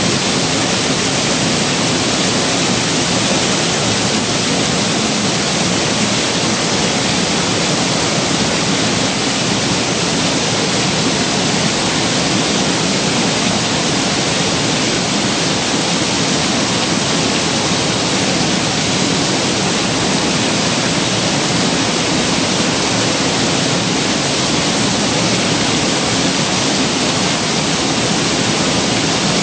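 Waterfall pouring over sandstone ledges: a steady, unbroken rush of falling water.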